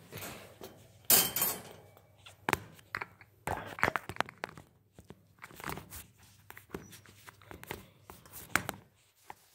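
Footsteps on carpet with scattered knocks, thuds and rustling handling noise; the loudest is a rustling burst about a second in.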